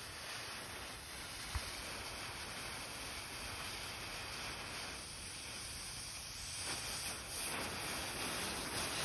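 Visco fuse burning with a steady hiss, with a brief click about a second and a half in. The sizzle grows louder in the last couple of seconds as the flame reaches the plastic fuse junction and lights the branch fuses.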